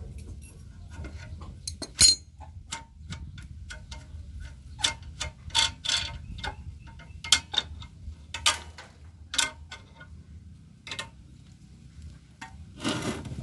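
Irregular metal clicks and clinks of a wrench working the fuel-line fitting on a diesel engine's injector, with one loud ringing clink about two seconds in, over a faint low hum.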